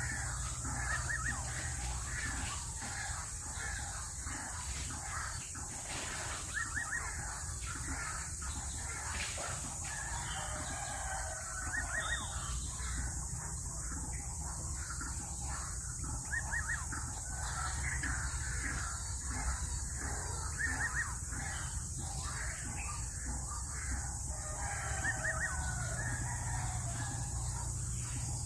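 Bird calls: many short runs of quick, rising notes, repeating throughout, over a steady high hiss and a low hum.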